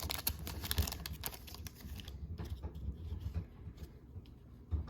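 Trading cards being handled straight out of a foil pack: a run of light clicks and taps as the cards are slid and squared up, thinning out after about two seconds.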